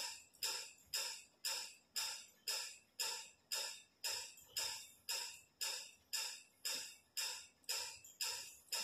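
Background music with a steady beat of sharp, bright percussive strokes, about two a second.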